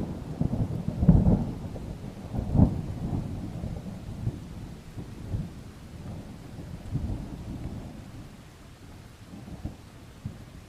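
A roll of thunder in a rainstorm: crackling and rumbling that is loudest in the first few seconds, then fades away steadily, with rain behind it.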